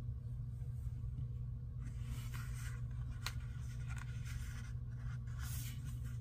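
Paper rustling and light rubbing as a sticker sheet is handled and a sticker is pressed onto a journal page, in a few short spells over a steady low background hum.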